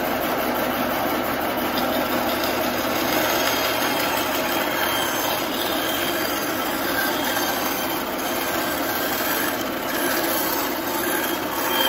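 Bandsaw running and ripping a wooden log blank lengthwise, a loud steady whir of motor and blade cutting through the wood.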